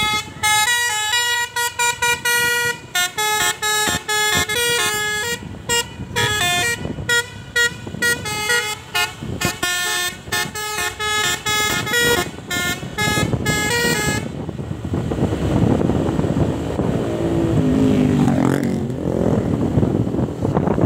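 Bus 'telolet' Basuri musical air horn playing a fast tune of short, changing notes, which stops about two-thirds of the way through, leaving engine and road noise.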